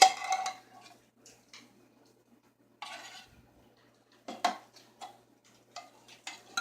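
Metal kitchenware knocking and scraping while canned cream of chicken soup is emptied into a pot: a loud sharp knock with a brief metallic ring at the start, a short scrape about three seconds in, then several lighter clicks and knocks.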